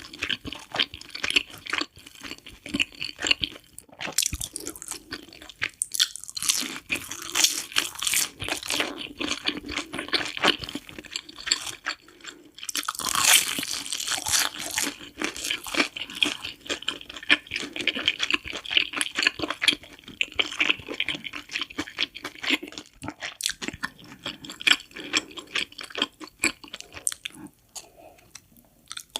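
Close-miked chewing and crunching of cheese sticks, a dense run of crisp crackles and mouth sounds that thins out and goes quieter near the end.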